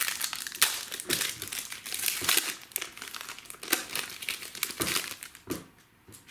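Packaging crinkling and crackling in the hands as trading cards are unwrapped and handled, in irregular sharp crackles that die away about six seconds in.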